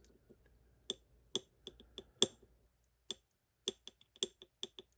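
Small metal lock pins and tweezers being handled on a tray: over a dozen sharp, light clicks at uneven intervals, starting about a second in.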